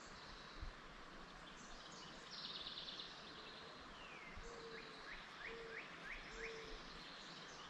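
Songbirds singing over the steady rush of a river: a buzzy high trill about two seconds in, then a falling slur and a run of quick rising chirps, with a few short low notes among them.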